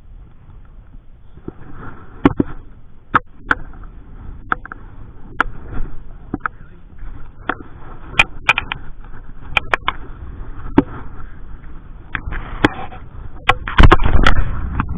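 Wind buffeting the microphone, with irregular sharp clicks and knocks of handling throughout, and a strong gust near the end.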